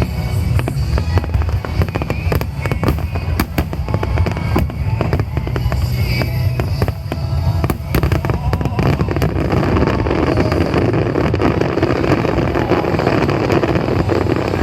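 Fireworks display: shells bursting in a rapid run of loud bangs and crackles over a deep rumble. After about ten seconds the separate bangs merge into a denser, steady crackle.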